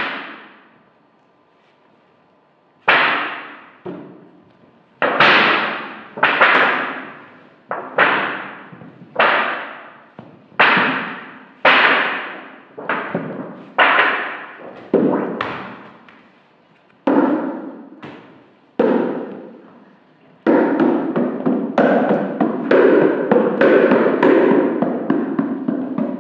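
A run of single sharp hits, one every one to two seconds, each ringing away over about a second. About twenty seconds in they give way to a dense, continuous jumble of overlapping sounds.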